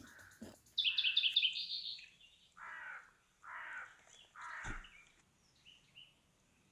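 Birds calling outdoors: a quick run of high chirps about a second in, then three harsh, caw-like calls about a second apart.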